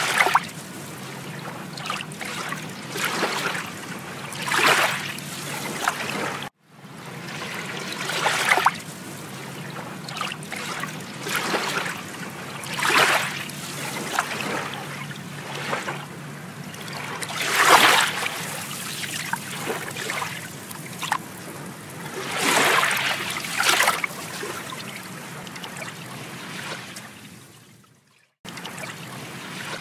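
Shallow lake water splashing and trickling as a toddler wades and pushes a driftwood log, in irregular bursts a few seconds apart. The sound cuts out briefly twice.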